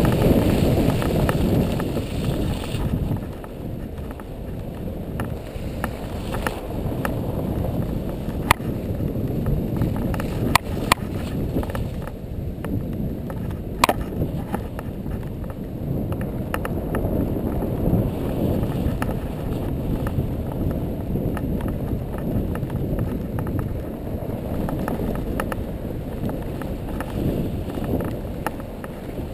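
Onboard sound of a vehicle driving along a snowy track: a low rumble of engine and tyres with wind buffeting the microphone, louder for the first few seconds. A few sharp knocks come around the middle.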